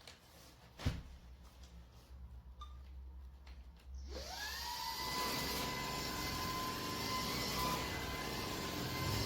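Shark PowerPro cordless stick vacuum switched on: its motor spins up with a rising whine about four seconds in and runs steadily with a rushing hiss, then stops abruptly at the end. A few light clicks and a knock come before it starts.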